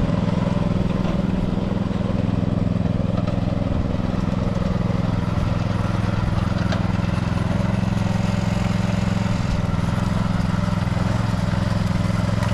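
Small gas engine of a Yardmax tracked power wheelbarrow running steadily at an even speed.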